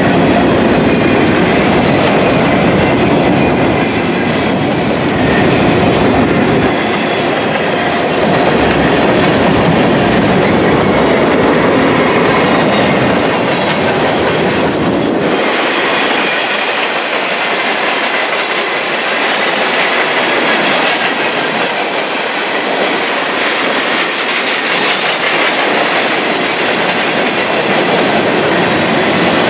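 Covered hopper and gondola freight cars rolling past, their steel wheels clicking steadily over the rail joints with a continuous rumble. The deep part of the rumble drops away about halfway through.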